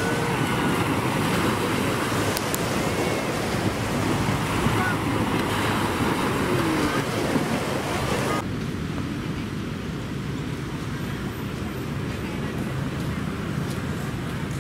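Beach ambience: a steady rush of wind and surf with faint distant voices. About eight seconds in it cuts abruptly to a quieter, duller outdoor background.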